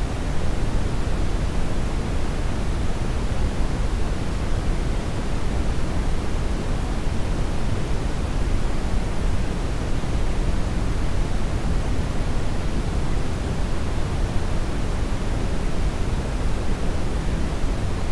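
Steady synthetic noise, an even hiss with more weight in the low end than the top, pink-noise-like, with no change throughout.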